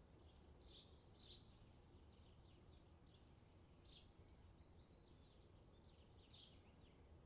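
Faint small birds chirping: four short, sharp high calls, two of them close together about a second in, with fainter twittering between them, over a low steady rumble.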